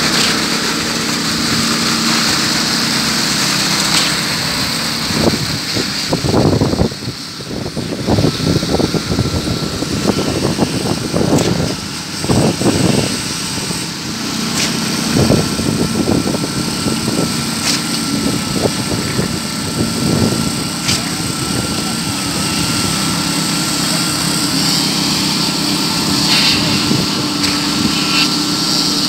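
Engine of construction machinery running steadily during a concrete slab pour, with a thin steady whine. Irregular knocks and scrapes of the concrete work come and go between about five and fifteen seconds in.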